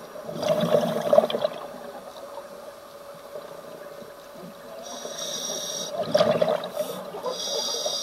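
Scuba diver breathing through a regulator underwater: a bubbling, gurgling exhale near the start and again about six seconds in, each following a hissing inhale.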